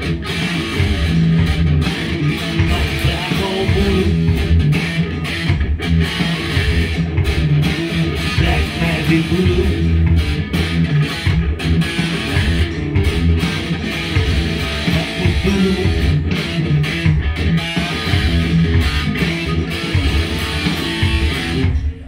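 Electric guitar played continuously: a dense, low riff with many short, choppy stops between chords.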